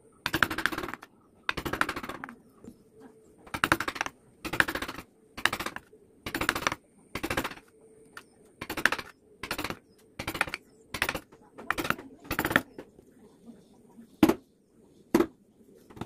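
Reciprocating power carving chisel hammering into teak in short bursts of rapid strokes, about one burst a second. Near the end the bursts stop and two single sharp clicks follow.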